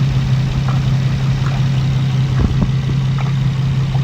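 Infiniti G35 sedan's 3.5-litre VQ35HR V6 idling steadily with a deep, even hum, running a little rough while air is bled from its cooling system. A couple of faint clicks come about halfway through.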